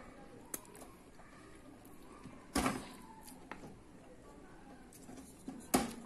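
Two sharp knocks about three seconds apart, with a few lighter clicks between: hands handling the opened microwave's metal parts by the magnetron.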